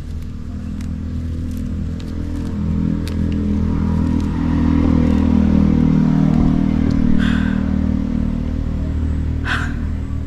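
A motor vehicle engine running with a steady low hum, swelling louder in the middle and easing off again, with two short sharp sounds near the end.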